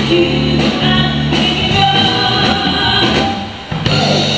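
Live music: a woman singing over keyboard accompaniment with a steady beat.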